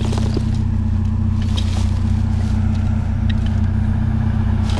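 A vehicle engine idling with a steady low hum, with a few light clicks and knocks over it.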